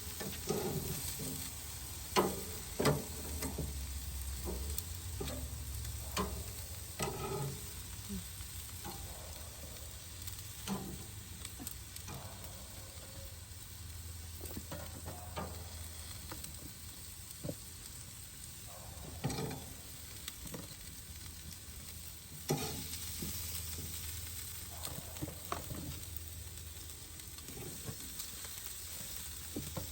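Marinated steak and asparagus sizzling on a grill: a steady sizzle broken by scattered short clicks and knocks.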